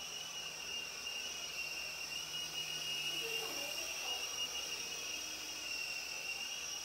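Sky Rover Vigilante micro RC helicopter in flight: its small electric motor and rotor give a steady high-pitched whine that wavers slightly.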